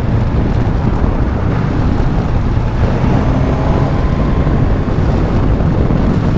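Suzuki GSX-S1000GT's inline-four engine running steadily under way, with wind rushing over a helmet-mounted microphone.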